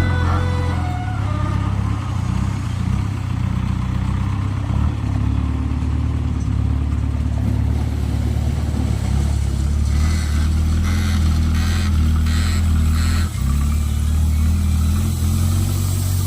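Diesel engine of a JCB 3DX backhoe loader running steadily under work. A run of short knocks comes about ten to thirteen seconds in.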